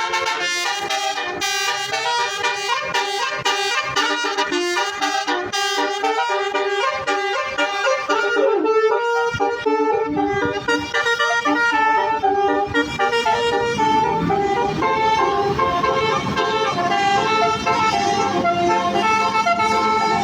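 A bus's Basuri 'telolet' multi-tone horn playing a tune. The notes come short and quick at first, then give way to longer held notes about halfway through.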